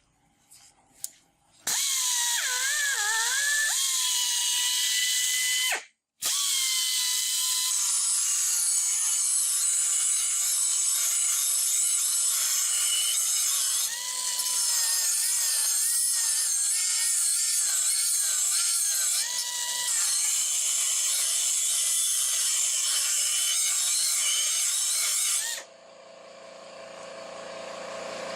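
Dotco 10L1281-36 right-angle pneumatic die grinder, rated at 20,000 rpm, running free: a loud high whine with air hiss, its pitch wavering. It cuts out briefly about six seconds in, then runs again until it stops near the end, after a few clicks at the start. A lower steady hum then comes up and grows louder.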